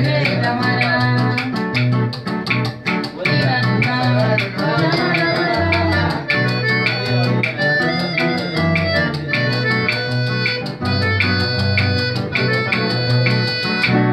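Piano accordion and acoustic guitar playing a bossa nova together: the guitar strummed in a steady rhythm with a walking bass line under sustained accordion chords and melody.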